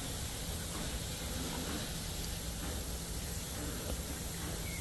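Steady, faint outdoor background noise: an even hiss over a low rumble with a faint constant hum, and no distinct events.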